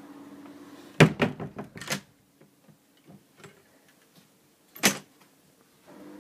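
A quick run of sharp knocks and clatter about a second in, lasting about a second, then a few faint ticks and one more sharp knock near five seconds.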